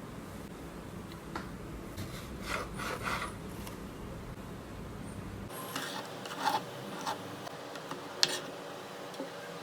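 Soft rubbing and scraping handling sounds, a few short scrapes and a sharp click near the end, over a low hum that drops away partway through.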